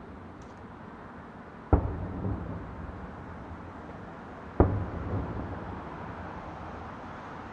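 Aerial fireworks shells bursting: two sharp booms about three seconds apart, each followed by a rolling echo.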